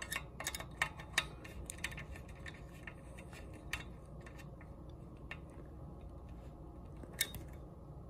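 Light, irregular clicks and ticks of a screw being turned in by hand and handled against the metal back cap of a United Pacific 46129 train horn, thickest in the first two seconds and sparse after.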